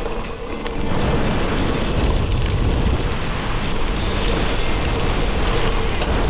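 Gravel bike on Panaracer GravelKing SS 38 mm tyres rolling fast over a dirt and gravel trail: a steady rush of tyre noise and rattle, with a deep rumble of wind buffeting the action-camera microphone. It gets louder about a second in.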